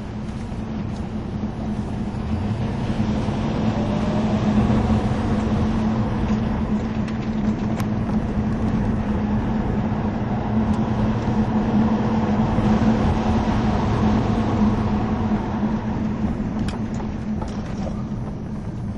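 Vauxhall Monaro's V8 engine running steadily, heard from inside the cabin with road noise, with a steady low hum. It grows louder a few seconds in and eases off near the end.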